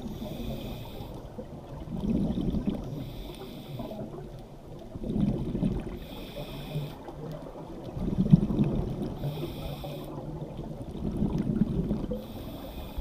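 A diver's scuba regulator breathing underwater: a hiss on each inhale, then a low rumble of exhaled bubbles. This repeats about every three seconds, four or five breaths in all.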